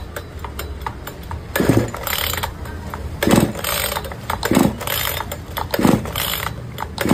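Recoil starter of a Flymax 62cc two-stroke chainsaw pulled about five times, each pull a short whirring crank that drops in pitch. The engine does not catch: the saw has a starting fault.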